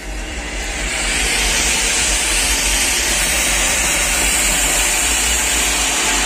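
Ground fountain firework (anar) spraying sparks with a loud, steady hiss that builds over the first second.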